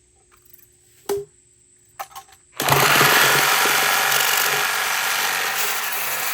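A couple of light knocks, then about two and a half seconds in a reciprocating saw starts and cuts steadily through the steel yoke tab at the end of an aluminum driveshaft.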